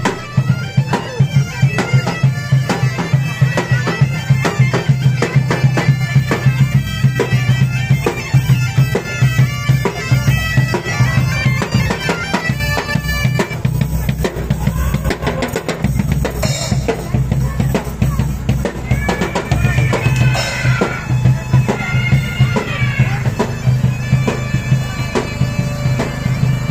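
Bagpipes playing a tune over their steady drone, with drums beating a regular rhythm.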